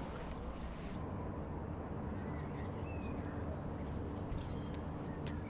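Outdoor ambience: a steady low hum with faint bird chirps about halfway through.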